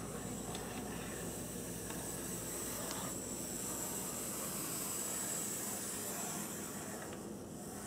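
Brass HOn3 0-4-4T Forney model locomotive running on the track: a steady whir of its small electric motor and gears with light wheel rumble and a few faint clicks. It grows a little louder midway and eases back near the end.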